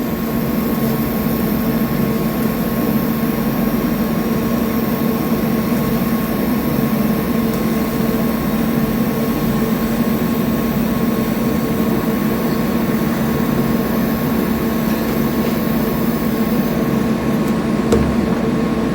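DC TIG arc on carbon steel from a Lincoln Square Wave TIG 200, with the machine running and the amperage controlled by foot pedal: a steady hiss and hum with a few held tones. A short knock comes near the end.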